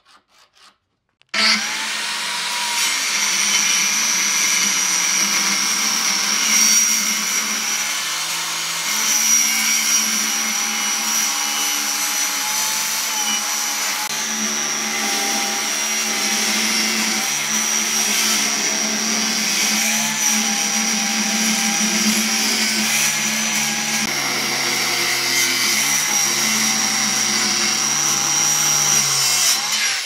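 Handheld circular saw ripping lengthwise through a thick live-edge wood slab, its motor running steadily under load. It starts abruptly about a second and a half in.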